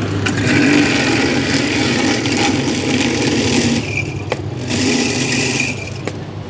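Electric ice shaver's motor running as its blade shaves a block of ice into a cup. It runs in two stretches, a longer one and then a shorter one after a brief dip.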